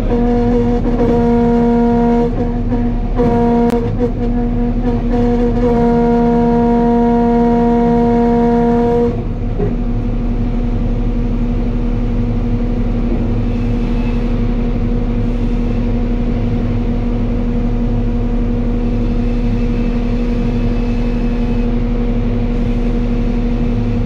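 Sawmill saw line running: a loud, steady machine drone with a low rumble beneath it. The drone is strongest and cuts in and out over the first nine seconds, then settles to a steady, slightly lower level as a log is carried through the saw.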